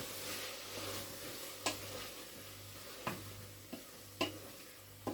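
A utensil stirring a sizzling mixture of vegetables, tomato puree, butter and spices in a narrow pot, knocking sharply against the pot about five times over a steady sizzle that slowly fades.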